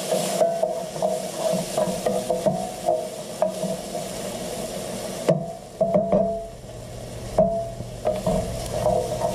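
Wooden spoon stirring and scraping diced bacon, shallots and garlic around a stainless steel sauté pan, with repeated scrapes and taps against the metal over the sizzle of the bacon fat.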